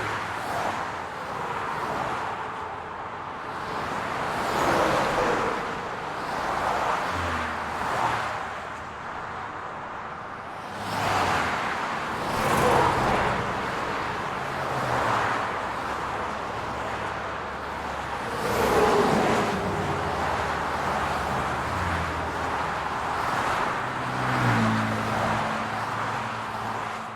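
City road traffic: cars passing one after another, each a swelling and fading whoosh of tyres and engine, with a low engine hum underneath that grows steadier near the end.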